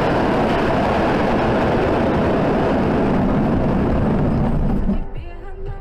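Crashed vehicle sliding along the road surface: a loud, steady scraping roar that drops away abruptly about five seconds in as it comes to rest.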